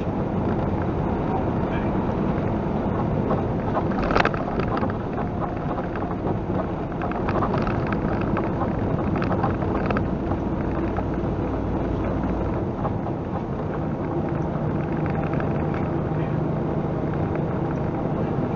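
Tractor-trailer's engine running steadily at highway speed, heard inside the cab along with road and wind noise. A single sharp knock about four seconds in.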